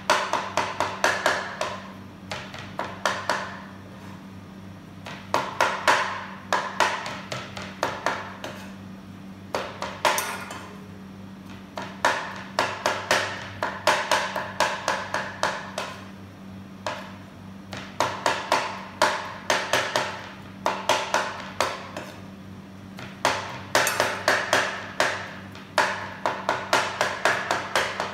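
Chef's knife rapidly mincing raw chicken breast and prawns on a wooden cutting board: quick knocks of the blade on the board, about five or six a second, in bouts of a couple of seconds with short pauses between.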